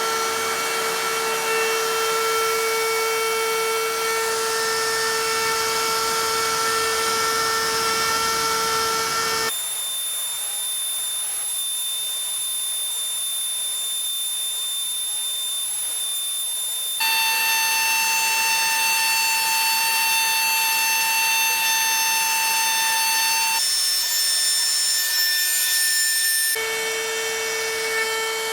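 Inventables X-Carve CNC router carving wood, its spindle whining steadily over the steady running of a dust-collection vacuum. The pitch and mix of the whine change abruptly three or four times, as if cut from separate stretches of the carve.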